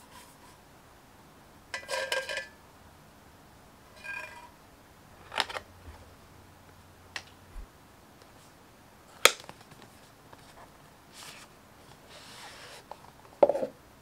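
Unboxing handling noises: a tumbler and cardboard boxes are knocked and set down in a gift box. There is a brief ringing clatter about two seconds in and another at four, a sharp click about nine seconds in, and a knock near the end.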